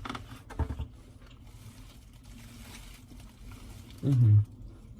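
Close-up eating sounds: soft chewing clicks and low thumps, then a short, low voiced hum falling in pitch about four seconds in.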